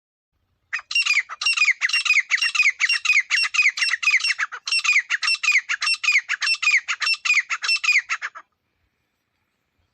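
Teetar (francolin) calling: a loud, rapid run of harsh notes, each falling in pitch, about four a second, with a brief break about halfway. The calling starts under a second in and stops abruptly about eight and a half seconds in.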